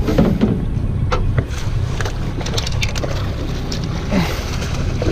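Steady low rumble of a fishing boat's engine, with scattered sharp clicks and knocks.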